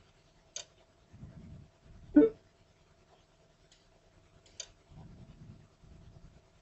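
A few sharp computer mouse clicks, including a quick double click, with one louder knock about two seconds in and soft desk rustles between, over a faint steady hum.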